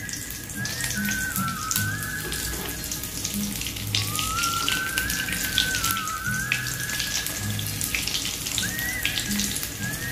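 Hot oil sizzling and crackling as breaded chicken-potato sticks deep-fry in a kadhai, with background music carrying a whistled melody over it.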